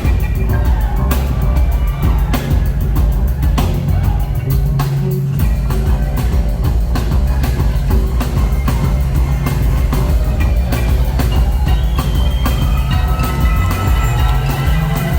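Loud live band music with a heavy bass line and a drum kit marking a steady beat, a strike about every second.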